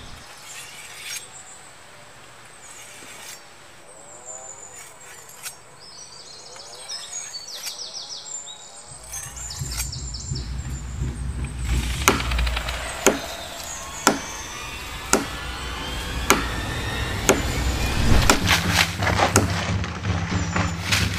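A machete chopping at wood and brush in a series of sharp strikes, roughly one a second from about halfway through. Faint bird chirps come first, and a low droning music bed comes in underneath the chops about nine seconds in.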